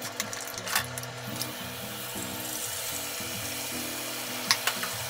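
Chopsticks click against a glass bowl as eggs are beaten. Then beaten egg sizzles as it is poured into a hot rectangular tamagoyaki pan, with a few sharp chopstick taps near the end. Soft background music with a stepping bass melody plays underneath.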